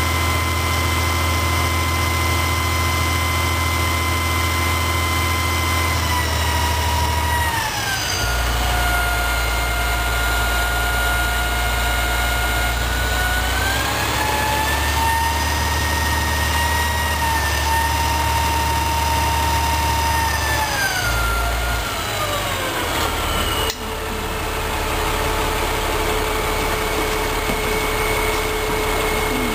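Crane's engine running with a steady low rumble and a whine on top that falls in pitch about seven seconds in, rises again about halfway and falls once more, as engine speed changes while the hook is worked. After a short break it settles to a steady lower hum.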